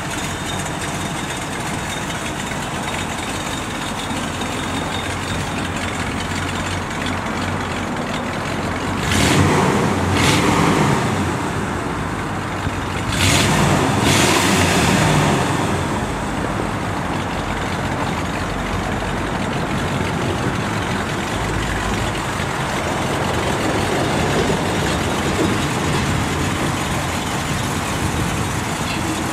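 1979 Dodge Li'l Red Express pickup's 360 V8 idling through its vertical chrome exhaust stacks, revved up briefly twice a few seconds apart near the middle.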